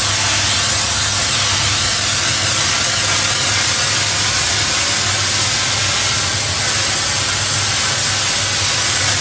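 Doff superheated steam cleaner's lance spraying near-boiling water onto patio slabs: a loud, steady hiss, with a low steady hum underneath.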